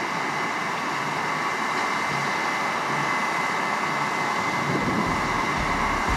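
New Holland CR9.90 combine harvester with a 13.6 m draper header harvesting, its engine and threshing machinery running with a dense steady rumble and a thin high whine, growing slowly louder as it comes closer.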